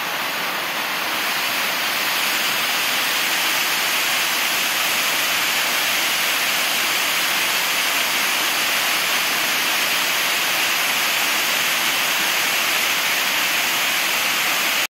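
Waterfall rushing: the steady hiss and roar of water plunging down a tall, narrow drop. It swells slightly over the first two seconds, then holds even.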